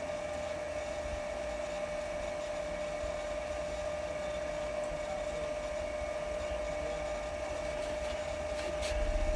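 Steady fan hiss with a constant mid-pitched electrical whine from a car-amplifier dyno test bench under a low-frequency test sweep. A low hum grows louder near the end.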